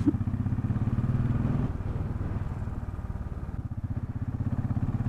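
Royal Enfield Bullet 500's single-cylinder engine running under way, its exhaust pulsing in a steady, rapid beat. It eases a little about a second and a half in and builds again near the end.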